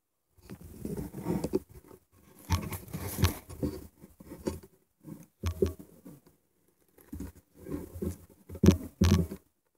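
Rustling, scraping and knocking close to the microphone in irregular bursts, with the loudest knocks near the end: handling noise of the recording phone as it is moved and set in place.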